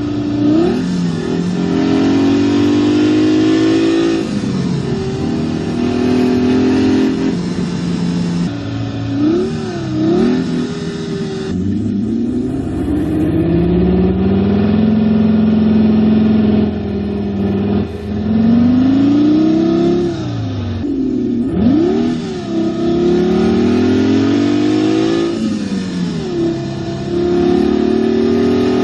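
Simulated sports-car engine sound from a SoundRacer gadget, revving up and dropping back again and again, several rises climbing in steps like gear changes.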